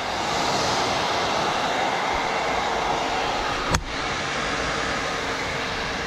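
Several hair dryers blowing together at once: a steady rush of air with a faint motor hum. There is a single sharp click about three and a half seconds in.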